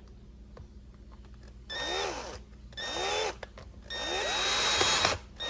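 Cordless drill/driver driving Phillips screws into the chainsaw's housing in three short bursts, the last and longest about a second. Each burst winds up and then back down. Another brief burst starts at the very end.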